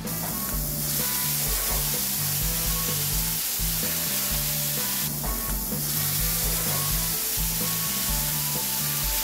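Cream and basil paste sizzling steadily in a hot frying pan with shrimp and shimeji mushrooms, the sauce being stirred near the end.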